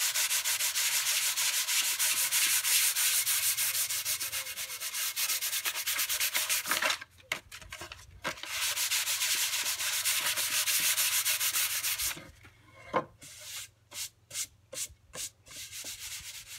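Sheet of 150-grit sandpaper rubbed by hand in quick back-and-forth strokes across the bottom of a wooden produce box. The strokes break off about seven seconds in, start again, then after about twelve seconds thin out to a few scattered light rubs.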